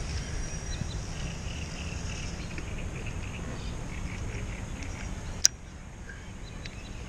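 Spinning reel: the bail arm snaps shut with one sharp click about five and a half seconds in, as the reel starts to be cranked for the retrieve. Under it a steady low rumble runs throughout, with faint short chirps repeating high up during the first five seconds.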